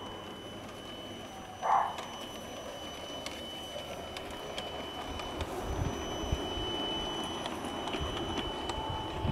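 Garden-scale model steam tank locomotive and coach rolling over the track, a low rumble with wheel clicks that grows louder as the train comes close in the second half. A short, loud call sounds once about two seconds in.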